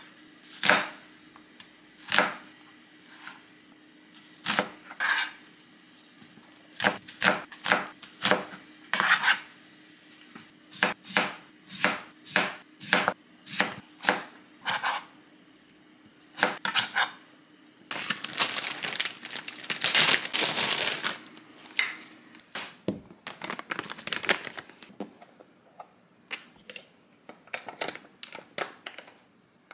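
Chef's knife cutting through onion and raw potato onto a cutting board, knocking on the board irregularly about once a second. After that comes a few seconds of continuous scraping. Near the end there are light clicks and scrapes as plastic tub lids are opened and a spoon digs into the paste.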